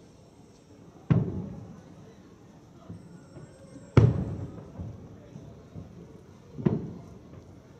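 Distant aerial firework shells bursting: three sharp booms a few seconds apart, each trailing off in a rolling echo, with a few fainter thuds between them.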